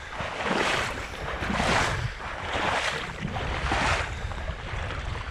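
Water swishing in a steady rhythm, about one swish a second, over a continuous low rumble.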